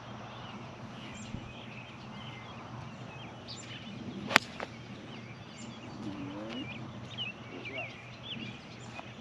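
A single sharp crack of a golf club striking the ball on a tee shot, about four seconds in. Birds chirp throughout.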